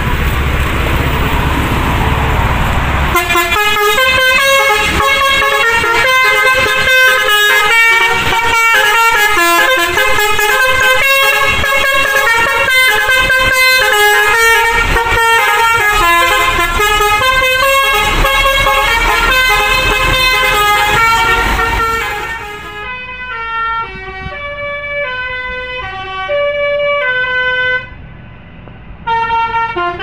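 Bus telolet horn, a multi-tone air horn, playing a fast tune of stepped notes. Before it starts there are about three seconds of loud rushing noise with a low rumble. About 22 seconds in the horn tune turns duller and quieter, with a brief drop near the end.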